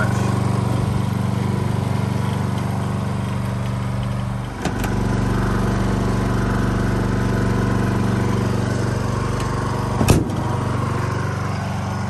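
Small Honda portable inverter generator running at a steady speed with an even engine hum. There is a brief dip and click about four and a half seconds in, and a sharp knock about ten seconds in.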